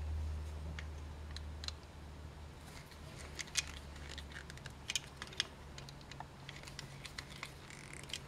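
Small clicks, ticks and scrapes of a screwdriver turning the terminal screws of a ПНВС push-button switch while a jumper wire is fitted to its middle contact. A low hum fades out over the first two seconds.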